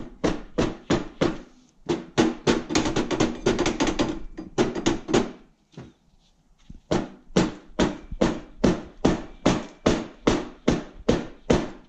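Rubber mallet hammering on the end of a go-kart's steel rear axle to drive it out of the frame. The blows come about three a second, with a quicker flurry early on and a pause of about a second and a half near the middle, then they go on steadily.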